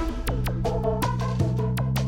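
Background music with a steady beat: held synthesizer bass and chords under regular drum hits.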